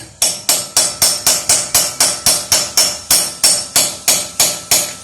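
Steady hammering: about four sharp metal-on-metal blows a second, each with a bright ring, driving a socket onto a stuck lug nut whose cover has swollen and is breaking off.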